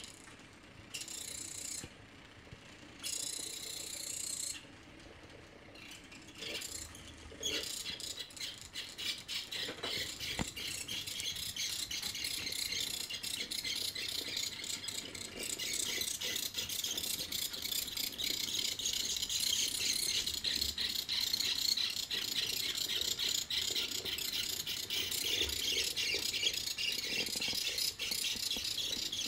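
The line-following robot's two small DC gearmotors are driving its wheels, and its Meccano chassis clicks fast and densely as it goes. For the first several seconds the motors stop and start repeatedly. After that they run continuously, getting gradually louder.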